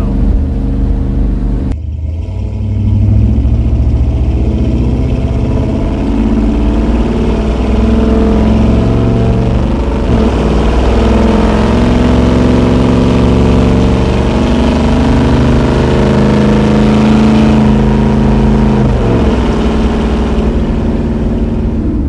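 1986 Chevy Suburban's 454 big-block V8 through a 3-inch dual exhaust with Flo-Shine mufflers, heard from inside the cab while accelerating. The engine note climbs steadily, drops at an upshift about halfway through, then climbs again and drops at another shift near the end.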